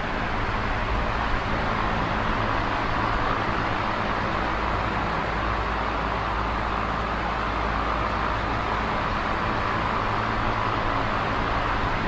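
Electric fan running steadily: an even, airy rush of moving air with a constant low motor hum underneath.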